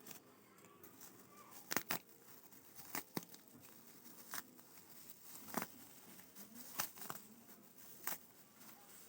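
Packaging being handled during an unboxing: scattered sharp clicks and taps, about eight in all, over light rustling.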